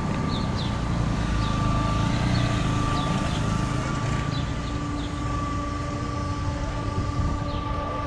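A vehicle running, a low rumble with a steady high whine held over it, and short high chirps here and there.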